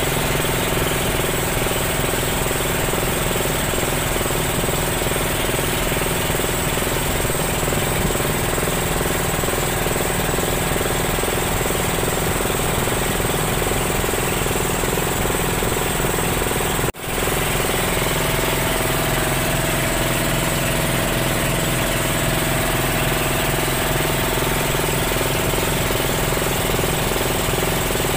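Small motorboat's engine running steadily under way, a fast, even chugging. The sound briefly drops out about two-thirds of the way through, then carries on unchanged.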